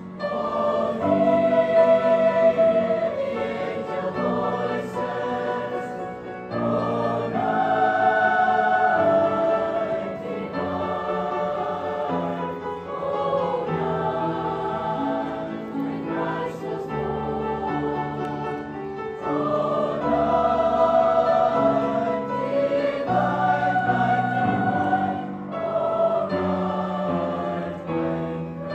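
Large mixed high school choir singing a slow choral piece in several parts, its long phrases swelling and easing every few seconds.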